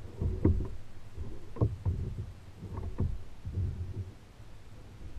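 Several hollow knocks and thuds on a plastic kayak as the paddler moves about in it, spread irregularly over a few seconds.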